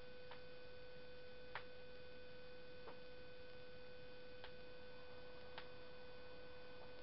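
Faint steady electrical hum made of several constant tones, with five or six faint ticks at irregular intervals of about a second.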